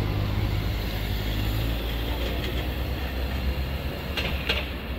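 Low, steady rumble of a nearby vehicle's engine, fading slightly, with a couple of faint clicks near the end.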